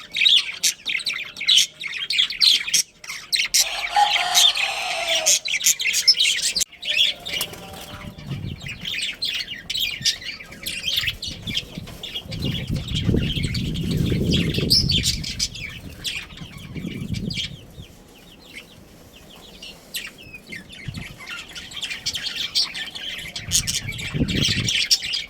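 Budgerigars chattering with many quick, high chirps, warbles and squawks. Partway through, a low rustling noise rises under the chirping, then the chatter thins out briefly before picking up again near the end.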